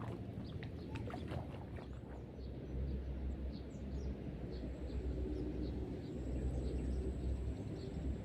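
Outdoor ambience: a steady low rumble, heavier from about two and a half seconds in, with faint scattered short chirps and a thin high whine that starts about halfway through.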